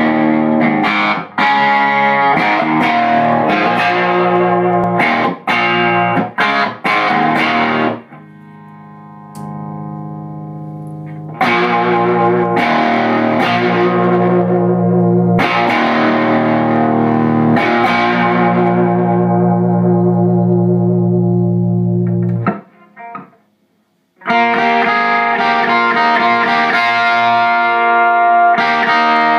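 Electric guitar played through a Kool & Elfring Straight 8 amplifier head and cabinet: chords with short stops, then long ringing chords. It drops to a quieter held sound for a few seconds while the amp's knobs are turned, stops briefly about two-thirds of the way through, then picks up again.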